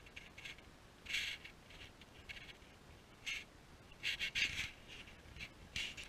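Wood-framed snowshoes crunching on snow with each step: an irregular series of short, sharp crunches, the busiest cluster about four seconds in.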